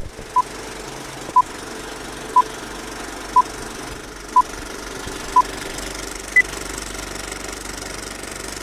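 Old-film countdown leader sound effect: a loud click at the start, then short beeps once a second, six times, followed by one higher-pitched beep, over a steady rattling film-projector crackle.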